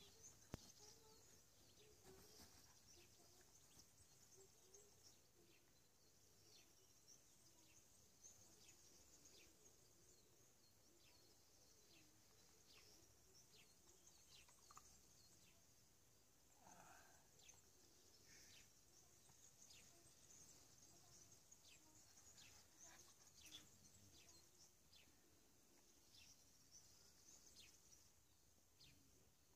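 Near silence: faint outdoor ambience with small birds chirping, many short high notes scattered throughout, over a steady high hiss.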